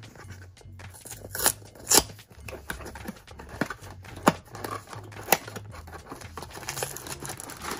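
A small cardboard blind-box carton being opened by hand: its seal is broken and the paperboard flaps are pulled open, with scraping and rustling and several sharp clicks of card snapping.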